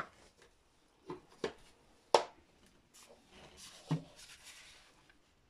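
A Metabo WEV 11-125 Quick angle grinder, switched off, handled on a wooden table top: four short knocks as the tool is picked up and moved, the loudest about two seconds in, with soft rubbing of gloved hands on the tool near the end.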